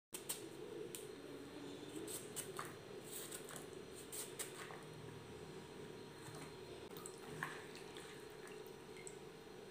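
Faint knife cuts through jackfruit rind, small pieces dropping into a bowl of water: a scatter of soft clicks and drips over a steady low hum.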